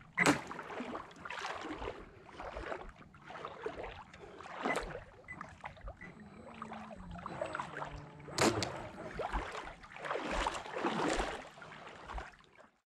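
ProBoat Impulse 32 radio-controlled boat on the water: irregular rushing surges of water spray and wash, with a sharp splash right at the start and another about eight seconds in, and a faint falling motor tone just before the second. The sound cuts off suddenly near the end.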